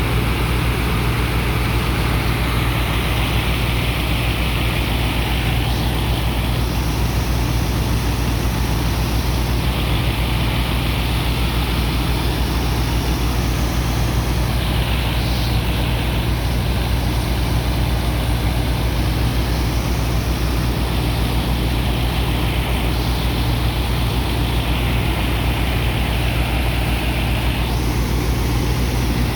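Heavy diesel engine of a sand-pumping dredger running steadily with a deep, even hum. Over it, a rushing hiss swells and fades every few seconds.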